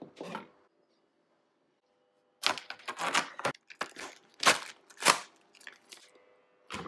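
Plastic film being torn and peeled off a tray of raw chicken, in several rough ripping strokes starting a couple of seconds in.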